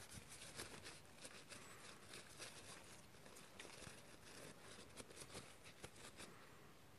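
Faint rustling and small scattered clicks of a paper tissue being rubbed around a used vape coil to wipe out the leftover e-liquid, barely above near silence.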